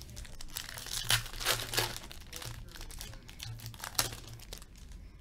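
Foil wrapper of an Upper Deck Portfolio hockey card pack crinkling and tearing open by hand. A run of crackles comes about a second in, and a sharp tear comes about four seconds in.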